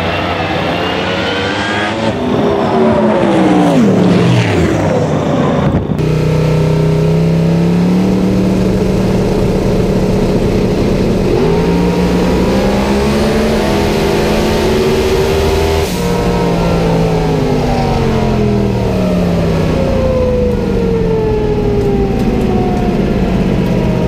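A drag-racing Corvette's engine at full throttle down the strip, revving up at the launch and then falling in pitch as it pulls away. Heard from inside the car, the engine pitch climbs and drops sharply at gear changes about 11 and 16 seconds in, then winds down steadily as the car slows after the run.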